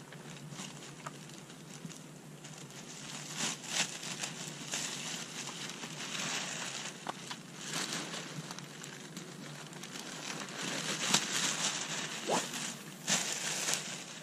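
Plastic bag rustling and crinkling in irregular bursts as it is handled and packed, with a few sharp clicks among the rustles.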